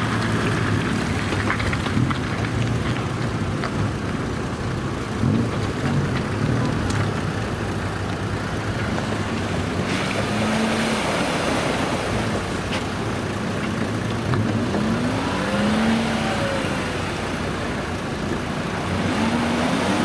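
Off-road 4x4 engines running at idle, a steady low hum over a continuous outdoor noise, with a few brief rises and falls in pitch.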